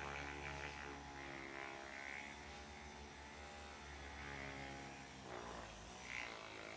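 Electric handheld massager buzzing steadily, fading out about five seconds in.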